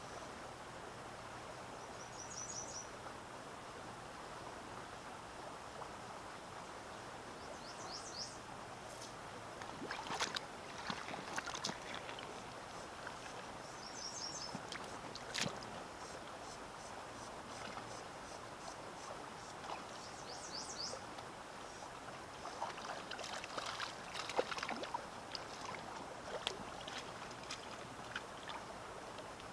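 Steady rush of flowing river water, with a songbird repeating a short, high trilled phrase about every six seconds. Scattered clicks and small splashes come in bunches around the middle and again near the end.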